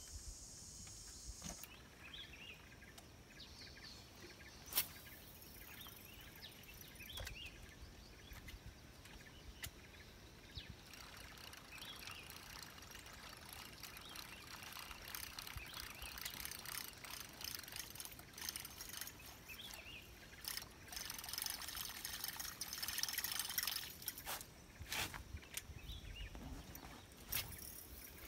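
Faint water trickling and lapping around a small boat, with a few sharp clicks. A louder high hiss builds from about the middle.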